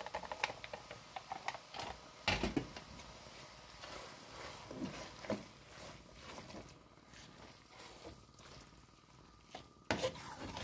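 A metal spoon stirring shredded chicken and tomato paste in a metal pot: scattered scrapes, clicks and soft squishing, with a louder knock about two seconds in.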